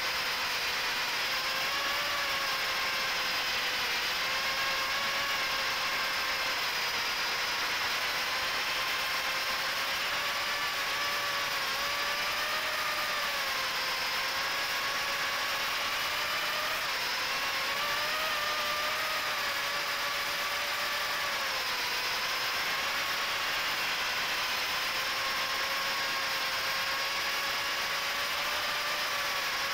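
Micro FPV quadcopter's HGLRC 1104 7500kv motors spinning 3-inch Gemfan 3018 props on a 2S pack, heard from on board: a steady high motor whine whose pitch rises and dips a little with the throttle, over a constant hiss.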